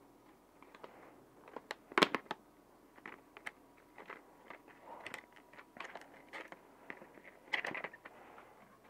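Hand tools and a plastic tool case being handled: scattered sharp clicks and clatter, the loudest about two seconds in and another flurry near the end.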